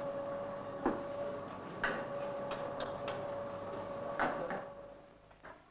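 Kitchen work sounds: irregular knocks and clinks of utensils and pans on a worktop, over a steady hum that fades out near the end.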